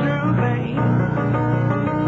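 Solo piano playing a stretch of chords without singing.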